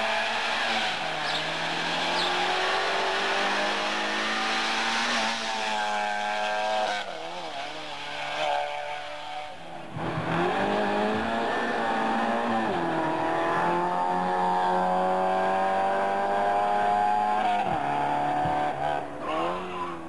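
Race car engine revving hard through a slalom course, climbing in pitch and dropping back at each gear change. The sound breaks off about ten seconds in, then revving starts again and holds high to near the end.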